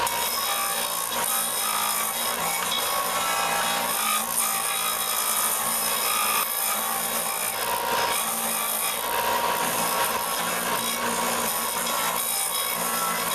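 Disc sander on a 4-by-36-inch belt and disc sander running steadily while a wooden 2x4 handle is pressed against the spinning abrasive disc, grinding the wood into a rounded grip.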